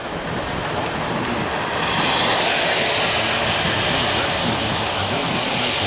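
Road and water noise heard inside a car driving on a rain-soaked road, swelling about two seconds in with a loud hiss of spray from the tyres.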